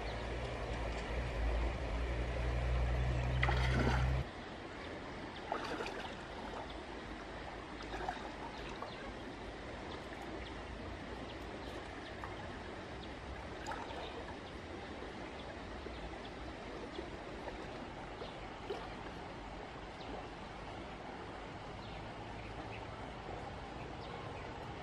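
Water running in a stream, a steady trickling wash with a few faint knocks; a low rumble in the first four seconds stops suddenly.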